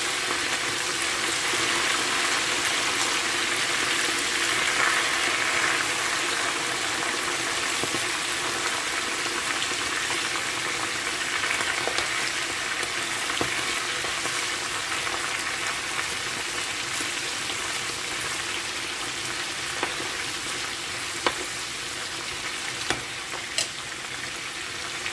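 Boiled meat deep-frying in a pan of hot oil: a steady sizzle with crackling, and a few sharp pops near the end. A metal spoon turns the meat about halfway through.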